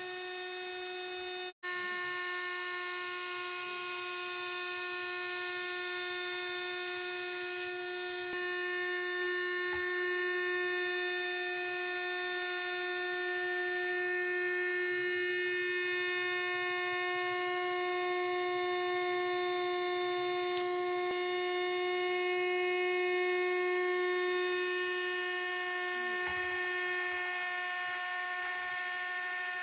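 Small DC hobby motor spinning the rotor of a homemade model helicopter: a steady, high-pitched electric whine, with one very brief break about a second and a half in.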